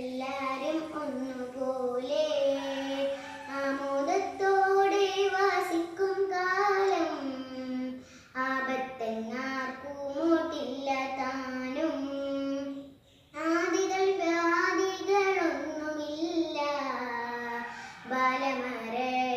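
A young girl singing solo and unaccompanied, holding long notes that step up and down; she pauses briefly for breath twice, about eight and thirteen seconds in.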